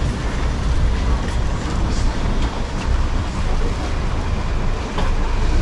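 Steady low rumble of city vehicle noise with a hiss on top and no single event standing out.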